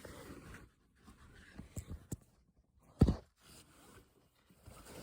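A few light clicks, then a single sharp knock about three seconds in, as fridge door hinge hardware is handled and set in place.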